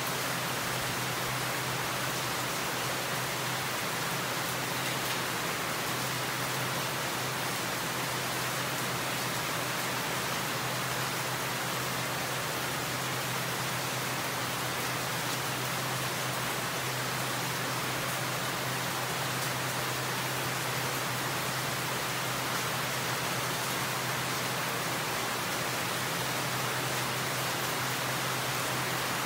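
Steady, even rainfall at night, falling on foliage, with a low steady hum underneath.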